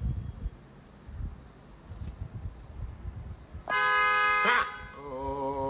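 A single loud, steady horn blast about a second long, starting and stopping abruptly a little past halfway. Low rumbling thumps come before it.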